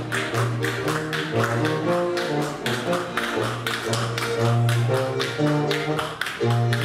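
Bavarian brass-band dance music, a low brass bass line under the melody, with quick sharp slaps and claps in time with it, typical of Schuhplattler dancers slapping their thighs and shoe soles.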